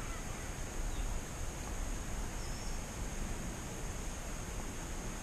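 Outdoor ambience in dry scrub forest: wind rumbling unevenly on the microphone under a steady high-pitched drone, with a faint bird chirp about two and a half seconds in.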